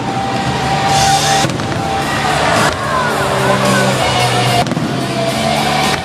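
Loud music with long held notes plays over a fireworks display, with the bangs and crackle of the fireworks underneath.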